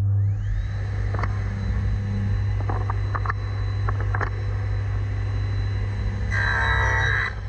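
Table saw motor spinning up with a rising whine at the start, then running steadily with a low hum, while a few light knocks come from wood being set against the sled. Near the end the blade cuts through a wooden strip for about a second, louder and rougher.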